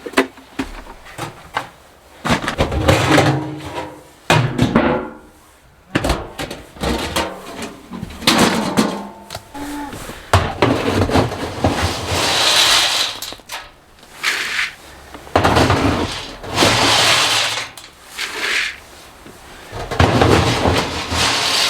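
Hay being pulled apart and loaded: irregular bursts of dry rustling and crunching, with knocks and thuds between them.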